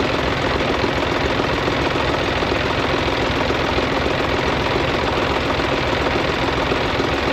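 Farm tractor diesel engine running steadily at idle, close by.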